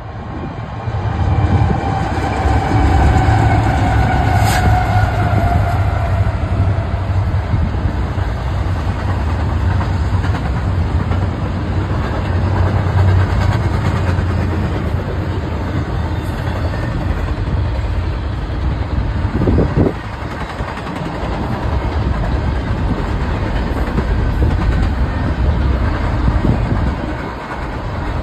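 Diesel locomotives of a double-stack container freight train passing, their engine drone dropping slightly in pitch in the first few seconds. Then comes the steady rumble of the container cars' wheels rolling over the rails.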